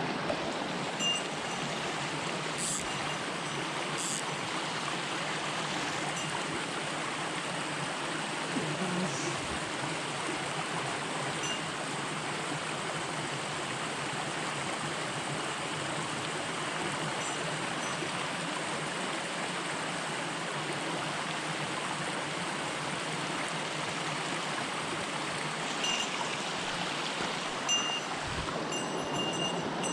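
Small mountain stream flowing, a steady, even rush of water.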